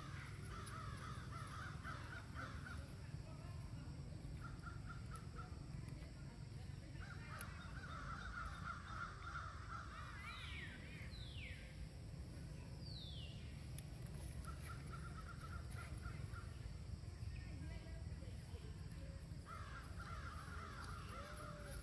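Crows cawing in repeated runs of raspy calls, with a few short high calls falling in pitch in between and a steady low rumble underneath.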